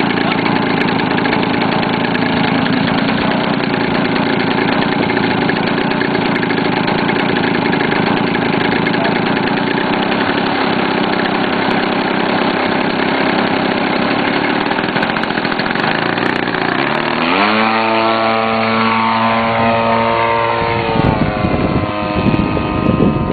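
50cc two-stroke gasoline engine of a large Edge 540 RC aerobatic plane running at low throttle, then opened up about three-quarters of the way in with a fast rising pitch for the takeoff run. The pitch holds high for a few seconds, then falls as the plane flies by in the air.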